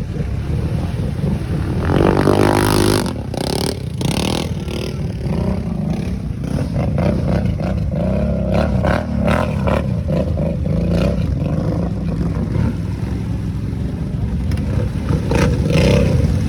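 Small engine of an off-road vehicle running and revving, its pitch rising sharply about two seconds in, then carrying on with varying throttle and a few short clattering knocks.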